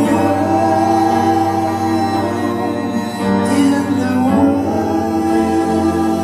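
Live band with a string section playing: keyboard, violins and cello holding long chords over drums, with a voice singing.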